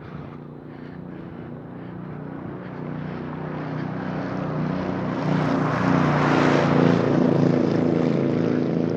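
An engine drone, a low hum of several steady tones with a rushing noise over it, growing louder over about six seconds and then holding.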